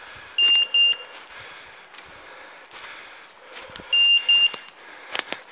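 Beeper collar on a pointing dog giving its high electronic beep-beep twice, about three and a half seconds apart: the repeating signal a beeper sounds while the dog holds point on woodcock. Dry leaves and twigs crackle underfoot between the beeps.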